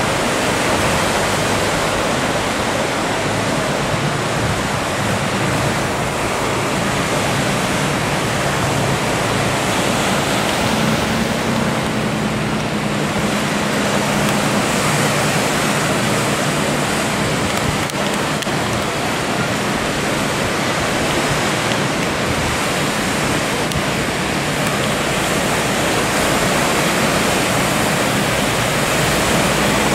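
Steady rushing noise of surf and breaking waves in a harbour entrance channel. Under it runs the low hum of the fishing boat's engine, growing a little louder near the end as the boat comes in close.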